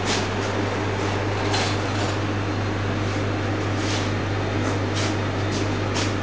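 Steady mechanical hum of running kitchen equipment, with a low drone underneath and brief soft hisses recurring every half second to second.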